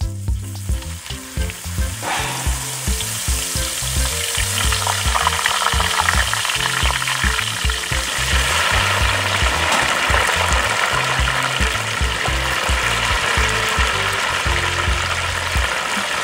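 Deep oil in a large wok sizzling as a bundle of lemongrass and then a whole fish fry in it: a dense, steady crackling sizzle that swells about two seconds in.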